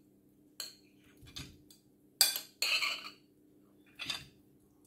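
Metal spoon scraping and clinking against a ceramic plate as canned fruit cocktail is pushed off it into a glass bowl: about five short scrapes, the loudest a little past two seconds in.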